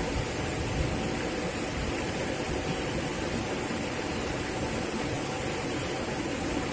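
Steady rushing noise, even and unbroken, with a faint steady hum underneath.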